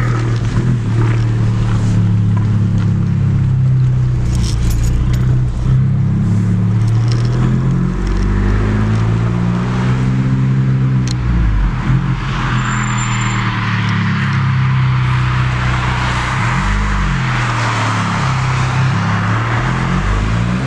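Abarth 595's 1.4-litre turbocharged four-cylinder engine heard from inside the cabin as the car drives off and picks up speed. The engine note climbs and drops back several times through the gear changes. From a little past halfway, road and wind rush builds as the car gets up to speed.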